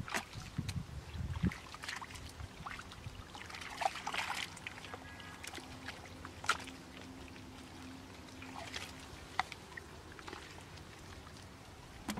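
Bare hands and feet squelching and splashing in shallow muddy water: irregular wet slaps, scoops and drips, with a few heavier low thumps in the first second or so.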